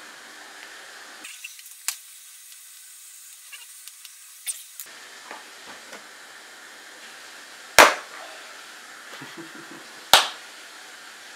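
Hand tools on an opened iMac G5: faint clicks of small screwdrivers against screws and the metal display frame, then two loud sharp clacks about two seconds apart in the second half.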